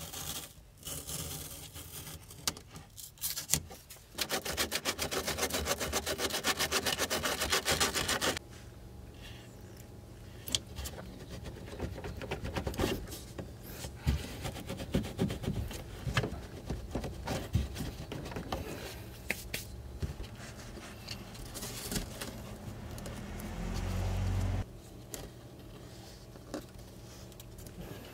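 Cured expanding spray foam and aluminum foil being scraped, crinkled and pulled off an MDF subwoofer ring by hand. There is a stretch of loud, fast, even scraping lasting about four seconds, then softer crinkling and rubbing with scattered clicks and a brief low thump near the end.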